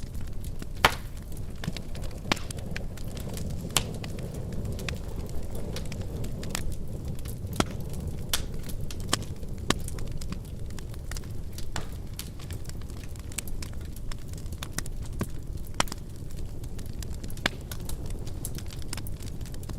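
Wood fire in a fireplace burning with a steady low rush, crackling and snapping irregularly, with a few louder pops.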